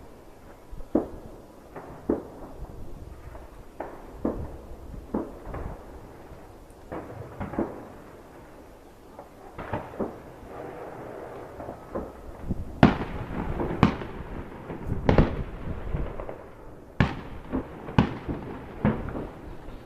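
Fireworks and firecrackers going off: a string of separate sharp bangs about a second apart, getting louder and more frequent in the second half.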